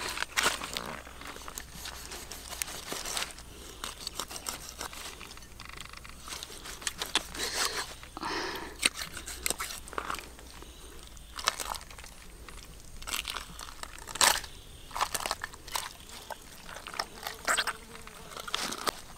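A cleaver scraping and cutting into a large catfish as it is gutted, giving irregular crunches and clicks, with the leaves under the fish rustling.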